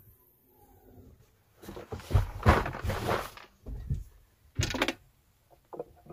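Fishing gear being loaded into a car boot: rustling and knocking as a backpack, landing net and rod are handled and set down on the boot floor, with a sharp knock a little before five seconds in.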